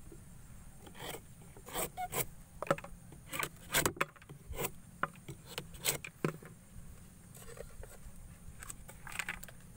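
Irregular dry clicks and scraping, as of wood or dry palm frond being rubbed. There is a dense run of sharp ones from about one second to six and a half seconds in, then only a few.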